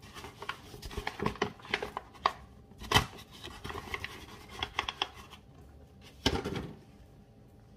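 Flour bag crinkling and rustling as it is tipped out and flour pours into a plastic bowl: a run of small crackles, a sharp crackle about three seconds in and another burst of rustling a little after six seconds, then it goes quieter.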